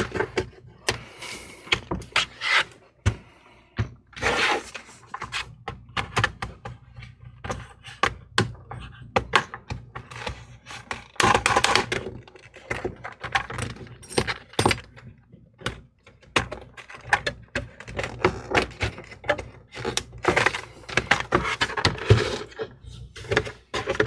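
Clicks and snaps of a laptop's plastic bottom cover being pried off its palm rest with a plastic pry tool, with scraping along the seam and knocks as the laptop is handled and turned over.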